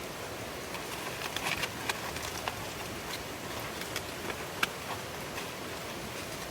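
Steady rain hiss with scattered sharp drops ticking on the tarp overhead.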